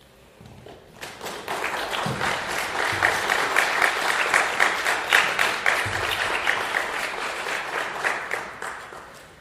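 Audience applauding: the clapping breaks out about a second in, swells, then slowly tapers off near the end.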